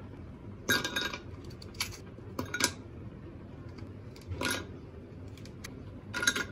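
Ice cubes dropped by hand into a glass mug, clinking and clattering against the glass in about five separate drops, the first the loudest.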